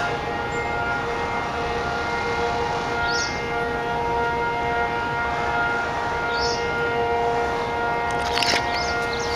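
Civil defence air raid siren holding a steady tone made of several pitches at once. It is the drill alert telling people to take shelter.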